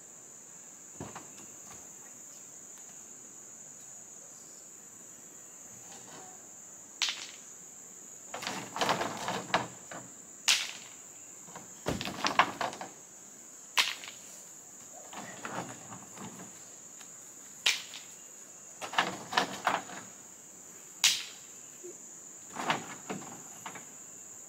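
Loose rocks clattering and knocking in a pickup bed in repeated bouts of several seconds' handling, with single sharp knocks in between, as rocks are worked out of the truck. A steady high-pitched insect chorus runs underneath.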